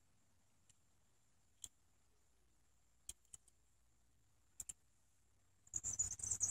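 Small toy car handled in the fingers: a few separate light clicks and taps, then near the end a dense patter of clicking and rattling as it is turned over in the hand.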